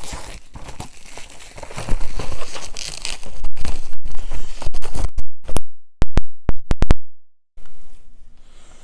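Plastic packaging of a miniatures kit being torn open and crinkled by hand, a dense crackling with many small clicks. Around six to seven seconds in come a few very loud sharp clicks with dead gaps between them.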